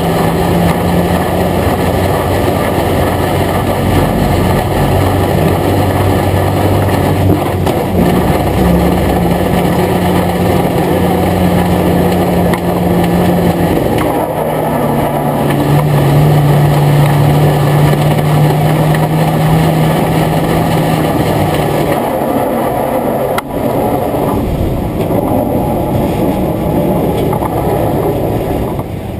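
Euro Rod stock car engine running at low, steady revs, its note stepping down a couple of times and dropping away near the end, over a steady rushing noise.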